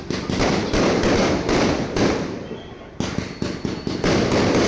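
Fireworks going off in a dense run of bangs and crackles, dipping briefly just before three seconds in, then another rapid volley.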